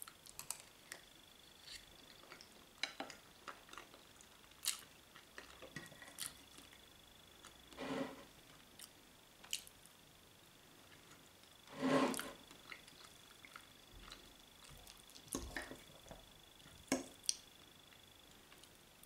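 Close-up eating sounds: a metal fork tapping and wet chewing of a potato dumpling with meat filling, made of scattered small clicks and squishes, with two longer, louder mouth sounds about 8 and 12 seconds in. A faint steady high whine sits underneath and stops near the end.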